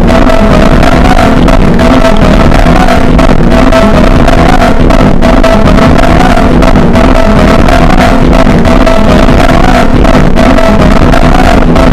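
Harsh noise music made on a synthesizer: a dense, loud wall of distorted noise over a steady wavering drone, with no break or change.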